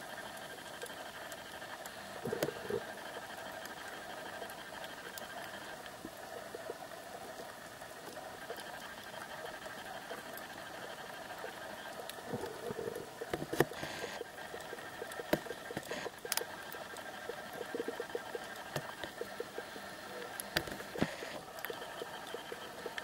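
Underwater ambience on a coral reef, heard through a compact camera's waterproof housing: a steady hum and whine with scattered clicks and crackles, which come thicker and louder in the second half.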